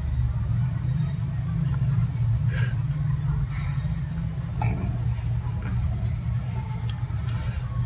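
Pencil rubbing and scratching on paper as lines are drawn, over a steady low rumble.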